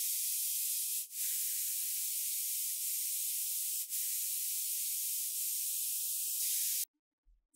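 Steady hiss of a pressurised spray, as when spray-painting a restored part. It runs in three long passes, broken by short pauses about a second in and about four seconds in, and cuts off abruptly near the end.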